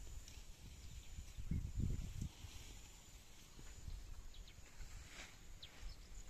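Quiet outdoor field ambience: uneven low rumbling, heaviest about two seconds in, with a few faint short high chirps later on.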